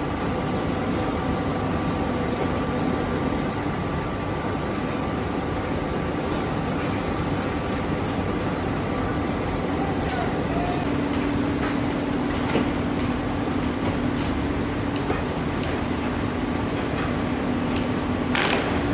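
Steady factory machinery noise: a constant din with a low hum and scattered sharp clicks, one louder knock near the end.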